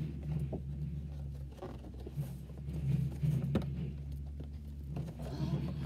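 Cardboard toy box with a clear plastic window being handled while its flap is pushed shut: rustling and scraping with a few sharp clicks, over a steady low hum.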